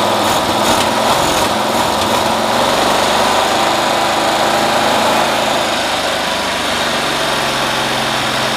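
Onan engine of a 1972 Cushman pickup, its carburetor freshly rebuilt, running steadily at the speed where its governor fights the throttle. A few light clicks come in the first couple of seconds.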